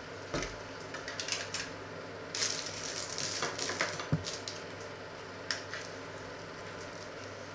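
Scattered clicks, rustling and a single sharp knock of things being handled in a kitchen, busiest in the middle, over a steady low hum.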